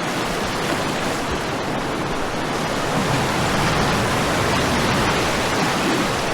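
Whitewater rapids rushing steadily, a loud, even noise of fast-moving water that swells slightly about three seconds in.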